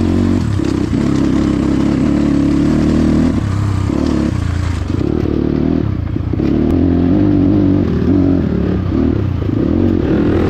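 Motorcycle engine running while riding, its note dipping and picking back up several times as the throttle changes.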